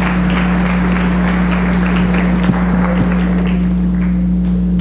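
Congregation applauding in a large hall, the clapping dying away about four seconds in, over a steady low electrical hum.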